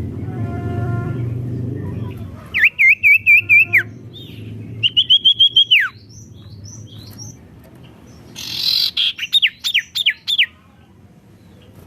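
A songbird, the cage bird called sirtu, singing three loud phrases of rapid repeated whistled notes, each ending in a falling note, about three, five and nine seconds in. A low rumble sits under the first two seconds.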